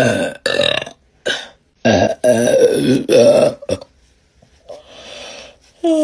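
A woman's deep, loud burps in a quick series: short ones in the first second and a half, then a long one with a wavering pitch from about two to three and a half seconds in.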